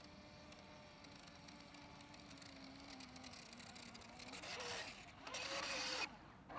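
Radio-controlled race boats' electric motors whining over the water: a faint, slowly falling whine at first, then two short louder bursts of motor whine with hiss, starting and stopping abruptly, about four and five seconds in.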